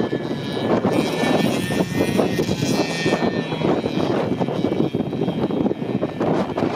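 Snowmobile engine running steadily under load as it tows an inflatable raft across snow, with a high whine that wavers slightly, over the constant rush of the raft sliding on the snow.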